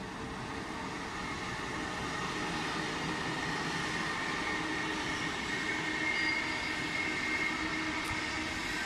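Locomotive-hauled passenger train, led by a TX Logistik electric locomotive, rolling past on the tracks: a steady rumble of wheels on rail that slowly grows louder. A thin high squeal gets stronger about halfway through.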